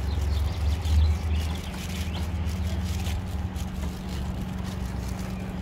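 Wind rumbling and buffeting on the microphone, gusting up about a second in, over a steady low hum.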